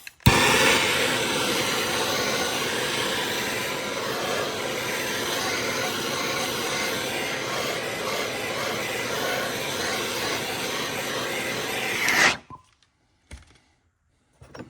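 A heat tool running with a steady rushing noise, played around a seized head stud on a two-stroke cylinder so the metal around the stud expands and frees it; it shuts off suddenly about twelve seconds in.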